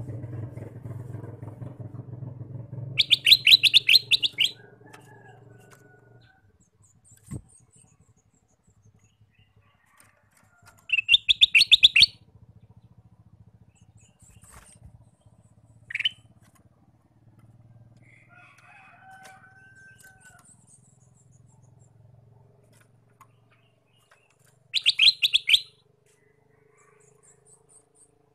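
Kutilang emas (ruby-throated bulbul) calling: three loud bursts of rapid chattering, with a short sharp note and a brief whistled phrase between them. A low engine drone fades out in the first few seconds.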